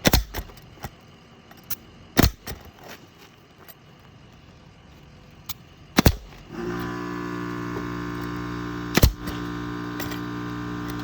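Nails being driven to fasten a box roof vent to the shingles: several sharp strikes a few seconds apart, the loudest near the start, just past two seconds, around six seconds and around nine seconds. A steady mechanical hum starts about six and a half seconds in and keeps running.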